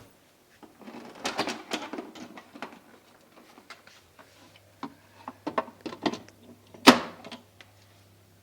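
Irregular clicks, knocks and light rattles from handling a DeLonghi EC310 espresso machine and its parts, with one sharper knock near the end. A faint, steady low hum sets in about halfway through.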